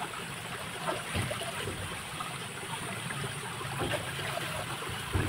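Stream water flowing in a steady rush, with a few brief soft knocks, the strongest one near the end.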